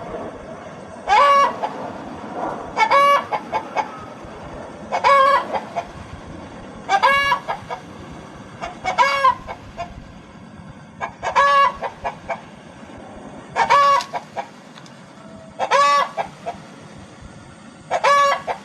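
A hen clucking: a loud, pitched 'petok' call about every two seconds, nine in all, each followed by a few short, softer clucks.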